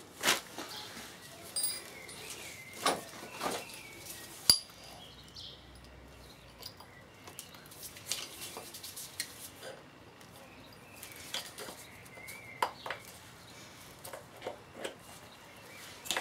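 Circlip pliers and a steel circlip clicking and clinking against a VW 1303S gearbox's drive shaft as the circlip is worked into place: scattered light metallic clicks, with one sharp click about four and a half seconds in.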